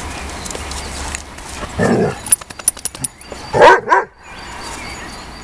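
Dobermann barking twice in quick succession, loud and short, during rough play with other Dobermanns, with a shorter bark or grunt a couple of seconds before.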